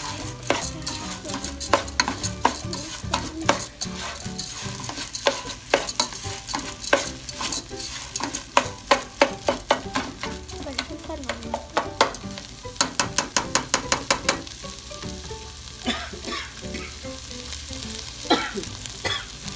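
Lentils frying in hot oil in a pot, stirred with a spatula: a steady sizzle under many sharp clicks and scrapes of the spatula against the pot, with a quick run of taps about two-thirds of the way through. The dry lentils are being toasted with tomato, onion and chorizo so they take on the flavour before the water goes in.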